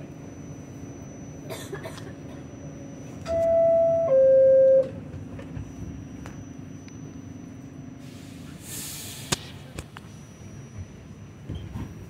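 R46 subway car's two-tone door chime, a steady higher tone then a lower one, about three seconds in, over the car's steady hum. About five seconds later comes a short hiss and a sharp knock.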